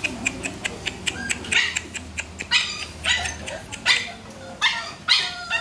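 Puppy yipping in short high-pitched cries, about six of them from a second and a half in onward. Before them comes a run of quick sharp clicks.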